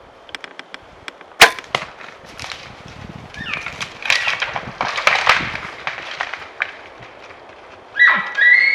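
A single sharp crack about a second and a half in, among lighter clicks, then a few seconds of wood and brush cracking and rustling. Near the end a high, steady, whistling elk bugle begins.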